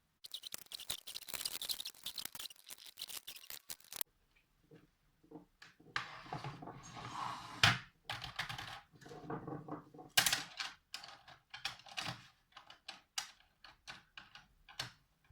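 Plastic clicking and rattling as a vintage Turbo-X keyboard's case is closed up over its keys. A dense run of clicks fills the first few seconds, then come scattered knocks and rustling, and a second run of clicks about ten seconds in.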